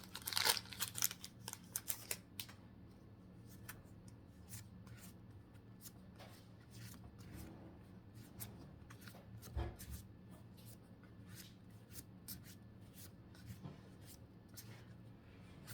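Pokémon trading cards being slid and flipped through by hand: a cluster of rustling card snaps in the first couple of seconds, then light scattered ticks as cards are moved one at a time.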